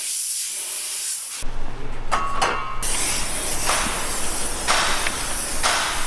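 A spray gun on an air hose hisses as it sprays a mist over the engine bay. It runs in a steady hiss at first and then in several short bursts, each under a second. From about a second and a half in, a low steady hum runs underneath.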